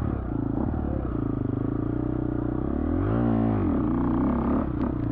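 Off-road dirt bike engine running under the rider, with its pitch wavering as the throttle works. About three seconds in it revs up sharply and drops back. A few sharp clicks come near the end.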